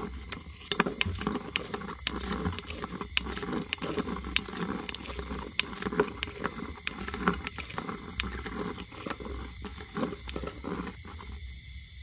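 Close rustling and crackling with many small sharp clicks, over a steady pulsing trill of night insects such as crickets.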